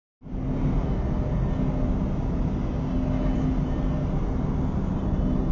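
Steady low rumble of city street noise with a faint hum, starting abruptly a moment in.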